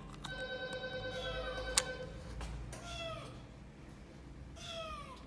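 Kitten meowing: a long, held cry, then two short meows that fall in pitch, with a sharp click partway through.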